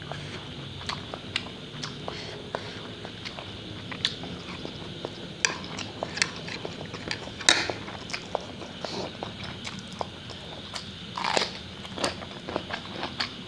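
Close-miked mukbang eating: chewing and slurping spicy instant noodles, with many short wet mouth clicks and smacks. Near the end there is a louder crunchy bite of fresh cucumber.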